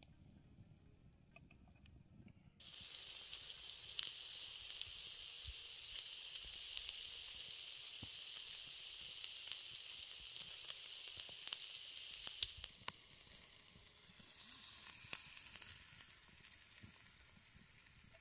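Marinated chicken tikka sizzling on a wire grill over glowing wood embers, a steady high hiss with scattered small crackles and pops. It starts about two and a half seconds in, dips briefly about two thirds of the way through, then sizzles again.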